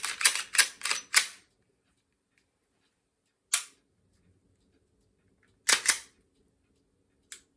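Ruger pistol slide being worked by hand: a quick run of about six sharp metallic clacks in the first second or so, then a single clack about three and a half seconds in, a close pair near six seconds, and one more near the end.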